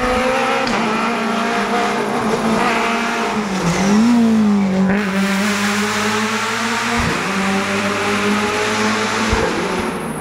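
Rally car engine at high revs on the stage, a sustained exhaust note that dips and climbs again about four seconds in, where it is loudest.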